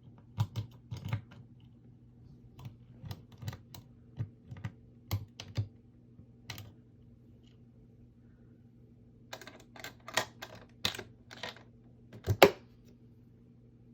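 Irregular light clicks and taps, some in quick pairs, over a steady low hum; after a pause of a couple of seconds they come again more densely, with the sharpest click near the end.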